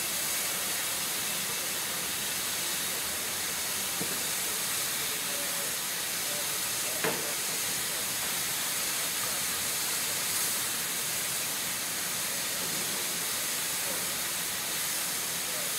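LMS Class 5 steam locomotive standing in the station, letting off a steady hiss of steam. A single sharp click about seven seconds in.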